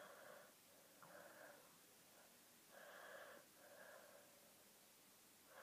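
Faint breathing close to the microphone: five short breaths of about half a second each, spread evenly through the quiet.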